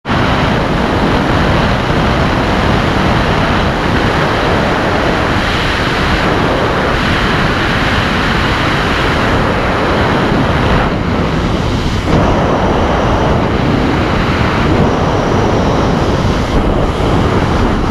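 Strong wind rushing and buffeting over a camera microphone in free flight under a paraglider, a steady loud roar.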